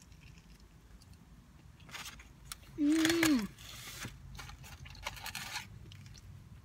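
Eating a cheeseburger with the mouth full: a few soft mouth clicks, then a short hummed "mmm" about three seconds in, falling in pitch at the end, the loudest sound. After it comes about two seconds of papery rustling as the cardboard fries carton is handled and fries are pulled out.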